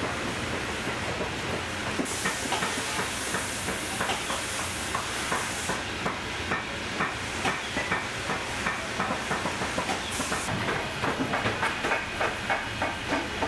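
Industrial post-bed sewing machine stitching leather: a steady motor hum under a rapid run of needle ticks, about four a second. A hiss rises twice for a few seconds.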